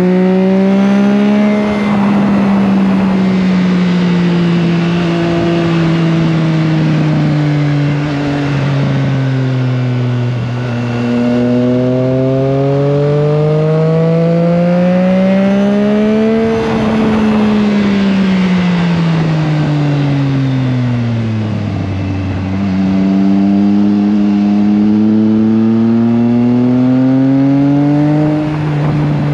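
Triumph Trident 660's inline three-cylinder engine under way, its pitch climbing as it accelerates and dropping suddenly at upshifts about two seconds in and near the end. Between those, it twice winds down in a long slow fall as the bike slows, then picks up and climbs again.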